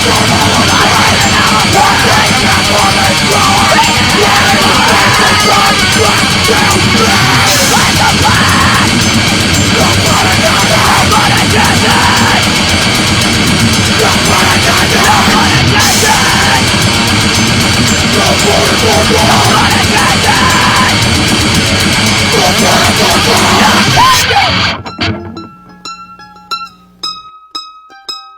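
Loud heavy metal band music, dense and unbroken, that cuts off abruptly near the end. A few soft, separate plucked-string notes follow.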